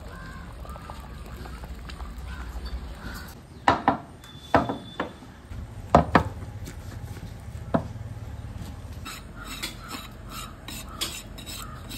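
Cooking utensils working in an aluminium pot: a long wooden paddle and a metal spoon stirring and mashing, with a handful of sharp knocks against the pot between about four and eight seconds in.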